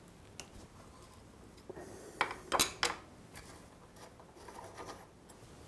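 Hex key working loose the rear axle pinch bolt on a motorcycle's caliper mount. There is light metal-on-metal handling, with three or four sharp metallic clicks close together a little over two seconds in.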